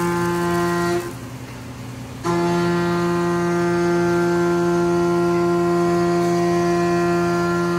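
2012 Haas VF-4SS CNC vertical mill cutting under flood coolant: a steady pitched whine from the spindle and cutter, with a hiss of coolant spray beneath it. About a second in, the whine drops out for a little over a second, then comes back at the same pitch.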